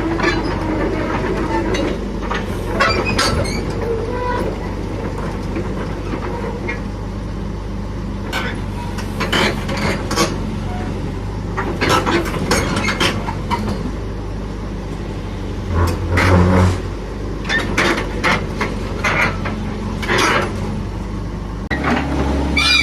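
A SANY 135 excavator's diesel engine running steadily, with repeated short metallic clanks and knocks from the working machine. The engine note swells briefly about two-thirds of the way through and changes pitch near the end, as the hydraulics take load.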